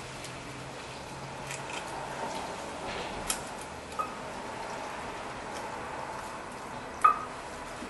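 New front brake pad being pushed into the caliper bracket of a 2006 Ford F-350 Super Duty: three short sharp metallic clicks, the loudest near the end, over a steady low hiss of workshop noise.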